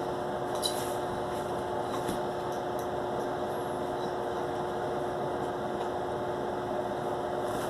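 A steady mechanical hum with a constant low tone, and a couple of faint clicks.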